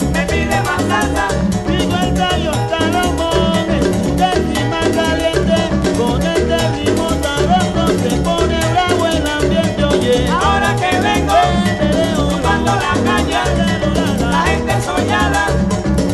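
Salsa band recording playing an instrumental passage at a steady dance rhythm.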